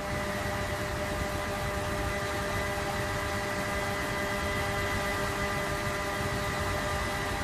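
Aircraft engine running steadily: an even rushing hiss with several held whining tones that do not change.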